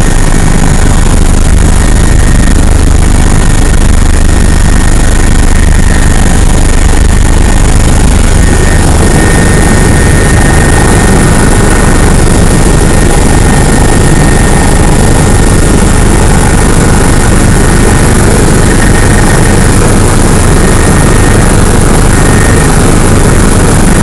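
Tour helicopter's turbine engine and rotor running in steady flight, heard from inside the cabin as a loud, unbroken roar with a deep rumble and a faint high whine.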